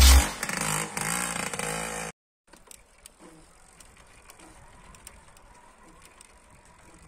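The end of an electronic hip-hop track with a heavy bass, which cuts off abruptly about two seconds in. After it there are only faint scattered clicks and ticks.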